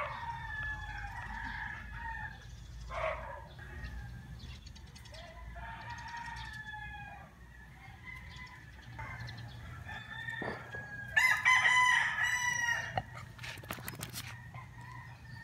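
Roosters crowing: fainter crows near the start and about six seconds in, and one loud crow lasting about two seconds from about eleven seconds in.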